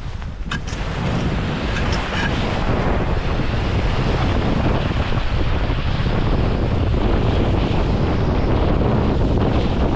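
Strong wind buffeting the microphone, a steady low rumble that builds over the first few seconds, with a few faint clicks near the start.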